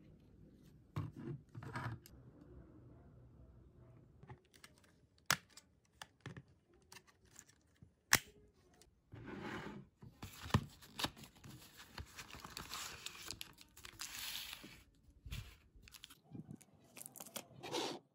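Faint handling sounds of a hard white plastic desk organizer on a wooden desk: scattered light clicks and knocks. From about nine seconds in, several seconds of crinkling, tearing noise as packaging is torn open and peeled.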